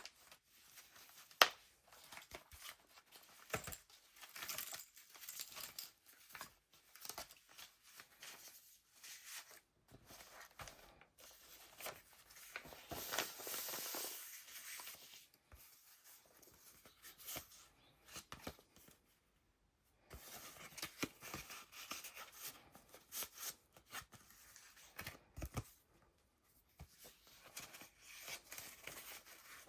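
Paper pages of a handmade junk journal being turned and handled: dry rustles and crinkles with many light taps, and a longer rustle about halfway through.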